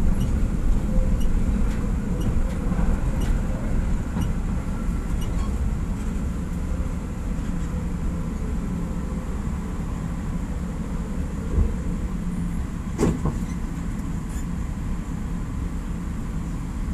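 PCC streetcar heard from inside the driver's cab, rolling on the rails with a steady low rumble that slowly fades as it slows to a halt. Light clicks over the track stop after about five seconds, and there is a single sharp knock about thirteen seconds in.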